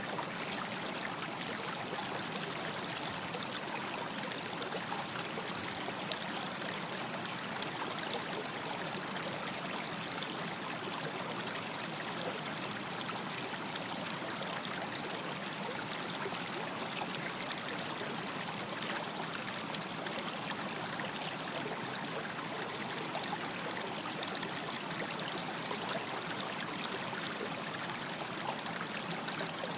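Small stream running steadily over stones, a continuous splashing trickle.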